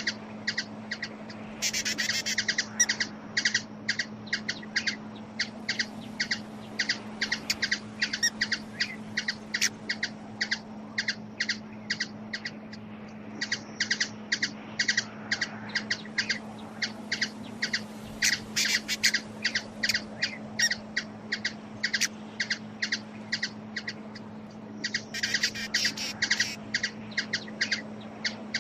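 Hummingbird chip calls: short, sharp chips repeated a few times a second, breaking now and then into faster flurries of chips. A steady low hum runs underneath.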